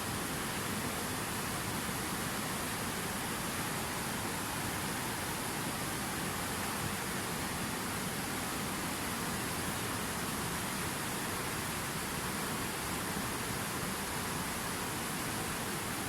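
River water flowing, a steady even rushing with no change.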